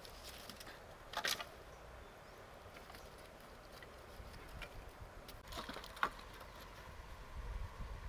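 Dry sticks and branches being gathered and handled, giving a few short cracks and rustles, a cluster about a second in and another near six seconds.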